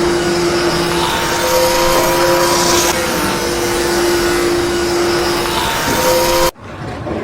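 An engine running steadily with a constant hum over noise, cut off abruptly about six and a half seconds in.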